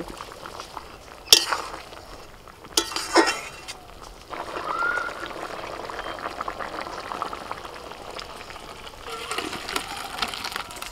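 Curry boiling in a metal kadai, a steady bubbling, with a metal ladle knocking against the pan twice in the first few seconds and stirring and ladling toward the end.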